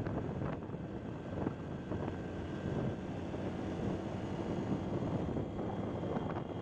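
Wind rushing and buffeting on the microphone of a moving vehicle, with steady road and engine noise underneath.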